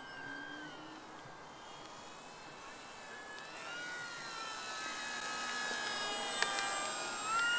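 Durafly Slow Poke RC model airplane's electric motor and propeller whining in flight, the pitch wavering with throttle; fainter at first, then growing louder as the plane comes close near the end. A single sharp click a little over six seconds in.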